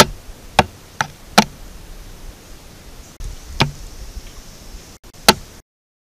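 Limpkin's bill pecking the trail camera's case: four sharp knocks in quick succession, then two more spaced a couple of seconds apart, after which the sound cuts off abruptly.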